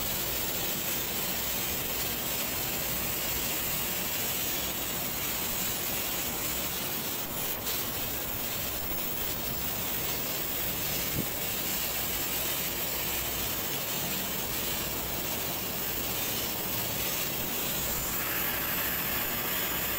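Electric angle grinder running steadily, its polishing pad rubbing along the edge of a granite countertop to bring the stone up to a shine.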